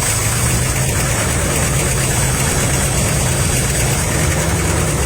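1969 Chrysler Newport's 383 big-block V8 running steadily just after being started, loud and even throughout; the owner thinks this engine has serious problems.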